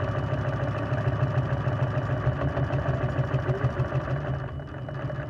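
Heavy-duty Pfaff triple-feed sewing machine running steadily as it stitches through heavy fabric, winding down near the end.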